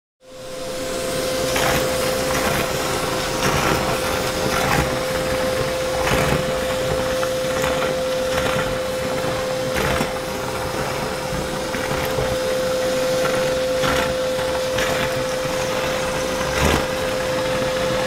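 Vacuum cleaner coming on and running with a steady whine, sucking soft plastic fishing lures up through a clear plastic tube on its hose. Each lure pulled in gives a short rattle or knock, about a dozen of them, the loudest near the end.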